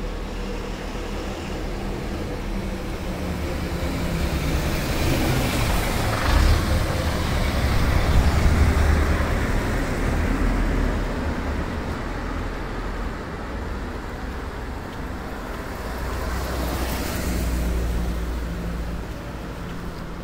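Cars passing along a town street: traffic noise that swells and fades twice, the louder pass about a third of the way in and a second one near the end, over a steady low rumble.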